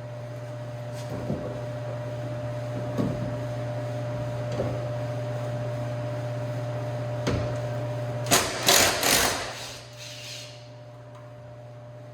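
Tools working on a car's leaf spring mounting bolts over a steady shop hum: a few scattered metal clinks, then, about eight seconds in, three or four loud short bursts of an air tool.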